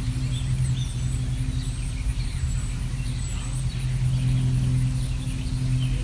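Small birds chirping and twittering in short scattered calls over a steady low hum that is louder than the birds throughout.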